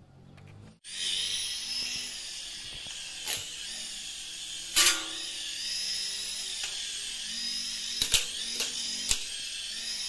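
Toy RC helicopter's small electric motors and rotors whining in flight: a steady high-pitched, wavering whine that starts suddenly just under a second in. Several sharp knocks cut through it, the loudest about halfway through.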